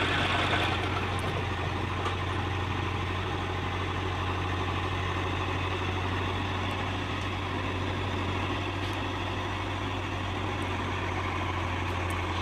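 Heavy diesel engine running steadily at idle, a constant low drone.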